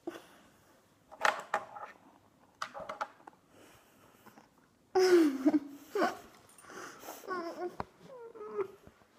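Two girls making wordless sounds of disgust with a mouthful of salt: short breathy gasps and huffs, then louder whining, gliding groans from about five seconds in.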